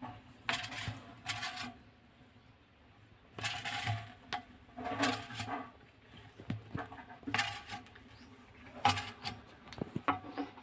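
A small mouse scrabbling and jumping inside a round container: short bursts of claws scratching and scuffling against the walls and floor, several times with quieter gaps between.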